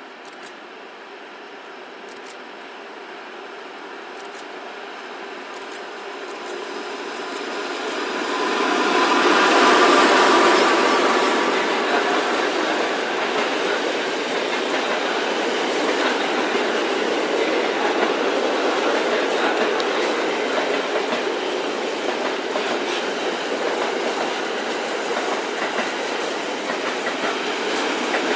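Electric-hauled container freight train passing close by: it grows louder as it approaches and is loudest about ten seconds in as the head of the train goes past. After that the container wagons roll by with a steady running wheel-and-rail noise.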